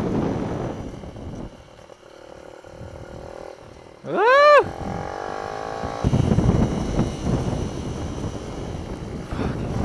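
Mini-bike engine heard from on board, loud at first, then dropping off about a second and a half in as the rider eases off into a corner, and coming back loud about six seconds in as the bike accelerates away. About four seconds in, a short, loud whoop-like tone sweeps up in pitch and back down.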